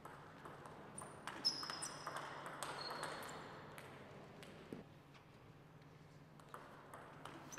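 Table tennis rally: a quick run of sharp clicks as the plastic ball is struck by rubber paddles and bounces on the table, with a few short high squeaks, then a few scattered single ball bounces.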